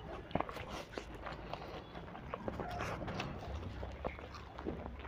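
Wet chewing and mouth smacking of someone eating a full mouthful of egg noodles fast, with scattered short clicks as a hand scoops up more noodles.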